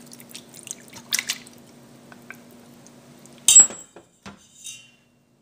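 Red pepper pieces and a little of their liquid dropped into a pan of tomato sauce with a metal fork: faint wet drips and small clicks over a low steady hum, then a sharp metallic clink about three and a half seconds in, followed by a few soft knocks.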